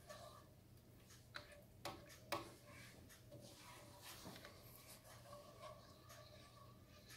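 Faint scraping of a spoon stirring a cream sauce in a skillet, with a few light clicks of the spoon against the pan, three sharper ones around two seconds in.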